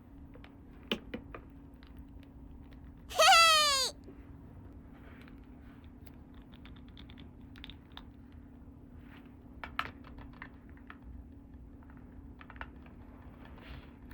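Small plastic toys being handled with light clicks and taps, and one loud squeak from a squeezed toy about three seconds in, falling in pitch and lasting under a second.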